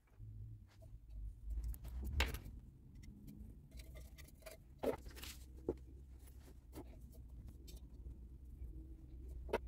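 Quiet handling noises: a small metal pot held upside down on quilted towelling while a marker pen is drawn around its rim, with scattered soft knocks and scratchy rustles.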